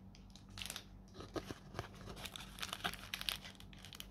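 Quiet, irregular crinkling and rustling as a cardboard card-deck box is opened and a foil-wrapped booster pack and cards are slid out of it.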